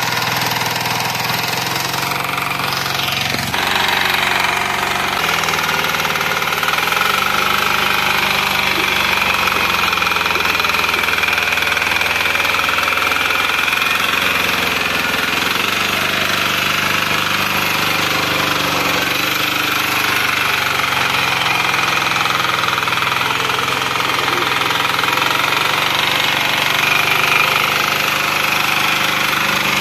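Small engine of a red rotary power tiller running steadily under load as its tines churn dry soil. The pitch sags and recovers a few times as the tines bite.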